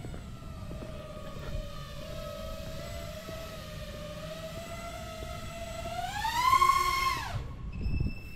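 FPV quadcopter's brushless motors whining over a low rush of wind, holding a fairly steady pitch, then rising sharply as the throttle is punched about six seconds in before spooling down and cutting off. A thin, steady high tone is left after the motors stop.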